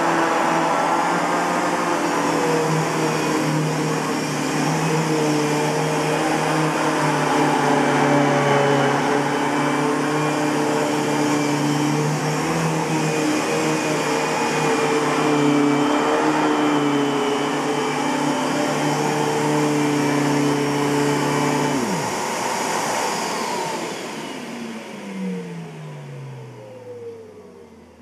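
Kenmore Progressive canister vacuum, with a Panasonic blower motor and an Ametek motor in its power nozzle, running on carpet with a steady whine and hum. About 22 seconds in it is switched off: one tone cuts out abruptly. The rest then winds down with a steadily falling pitch as the motor spins to a stop.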